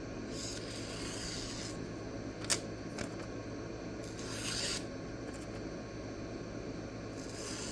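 A few soft rubbing strokes of a D2 knife blade being drawn over a sharpening surface, with one sharp click about two and a half seconds in.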